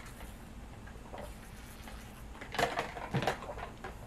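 Soft knocks and clatter of tableware about two and a half and three seconds in, as a drink tumbler is set down on the table beside a plastic food container.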